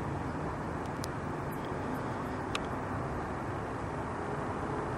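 Steady outdoor background noise picked up by a camcorder microphone: an even low rumble, with a few faint high ticks and one sharper tick about two and a half seconds in.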